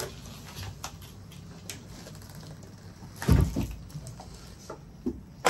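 Low rustling and handling noise with a few small knocks, one louder thump a little past halfway, and a sharp click near the end.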